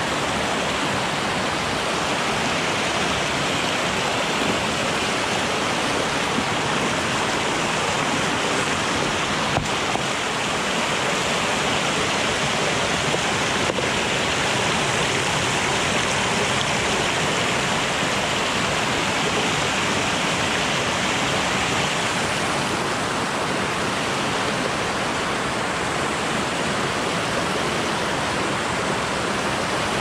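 A rainforest creek running, a steady, even rush of water.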